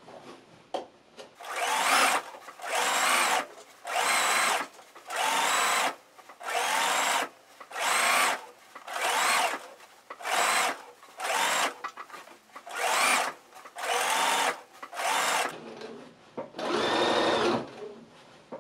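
Computerized sewing machine stitching in about a dozen short bursts of under a second each, its motor whine rising as it speeds up and stopping between runs, with one longer run near the end. This is a long running stitch sewn through a waistband casing and 2-inch elastic, paused after each spurt so the elastic can be pulled taut again.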